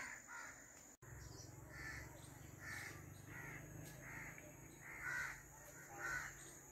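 A crow cawing over and over, about eight evenly spaced caws, roughly one every 0.7 seconds.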